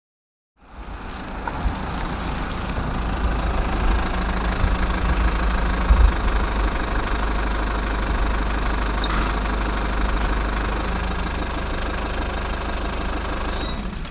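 An engine running steadily with a heavy low rumble, starting after a moment's silence.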